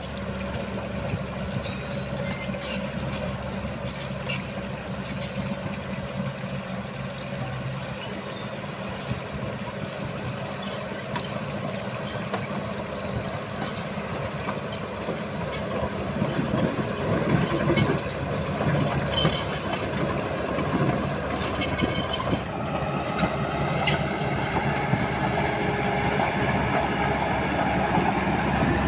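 Diesel engine of a tracked construction machine running steadily under work while spreading stone, with a thin high squeal that comes and goes and scattered metallic clanks. The engine load picks up about halfway through.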